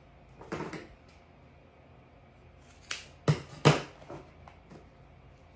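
Handling noise at a craft table, with cotton rope and a plastic cutting mat being worked by hand: a brief rustle, then a few sharp clicks or taps about three seconds in, the two loudest close together.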